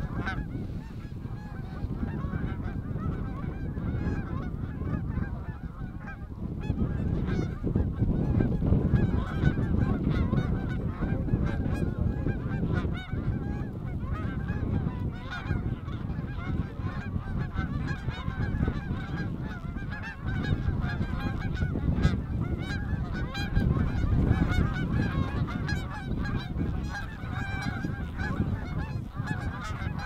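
A large flock of Canada geese honking overhead: a dense, continuous clamour of many overlapping calls, with wind rumbling on the microphone.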